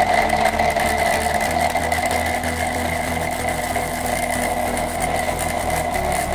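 Homemade blender's 12-volt DC motor running steadily, its blade chopping an onion inside a plastic cup. It gives a steady whine mixed with a rough rattle.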